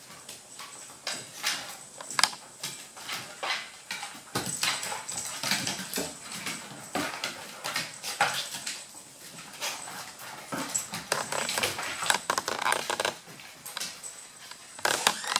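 Dogs whimpering and whining, mixed with many short, sharp clicks and taps from their claws on the hardwood floor.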